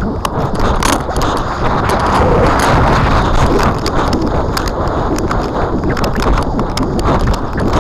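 Wind buffeting the microphone of a model rocket's onboard camera as the rocket descends under its parachute: a steady rumbling rush with frequent sharp clicks and knocks.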